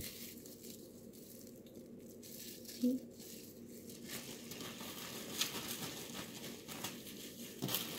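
Clear plastic freezer bag crinkling as it is picked up and pulled open, growing louder from about halfway through; before that only a faint rustle of plastic wrap.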